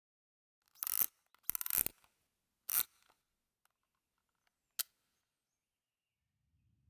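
A few short mechanical clicks and rasps in near silence: three brief scraping clicks about a second apart, then one sharp single click a couple of seconds later.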